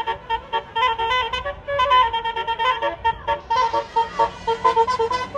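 A bus's telolet horn, a Basuri multi-tone horn, playing a fast tune of short, stepped notes.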